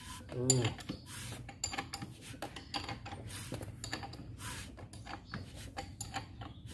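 Metal hand tools clicking and clinking in short, irregular strokes while bolts on a bare Toyota Avanza 1.3 engine block are worked and tightened.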